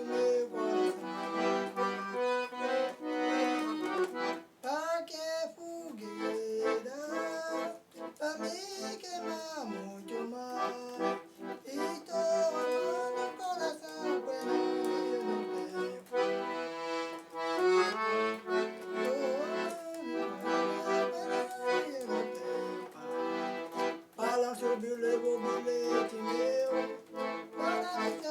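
Accordion-led forró music: an accordion plays a melody with sustained chords, over a steady beat of sharp percussion strokes.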